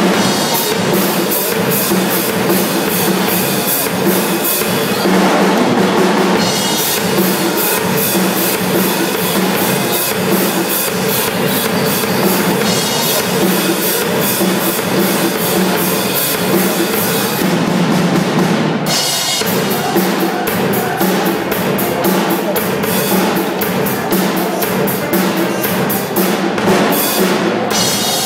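Drum kit played live, with fast, continuous strokes on the drums and cymbals.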